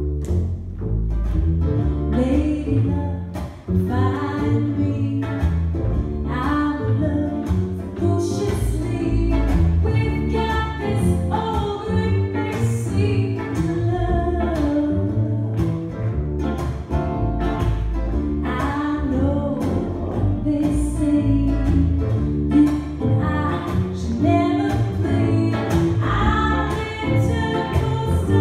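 Live folk-pop trio playing a song: upright double bass, ukulele and electric guitar, with a woman singing lead.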